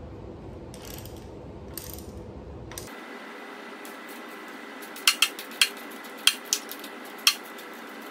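Hand ratchet wrench working the bolts of the engine's timing-belt pulleys, giving a handful of sharp, irregular clicks in the second half.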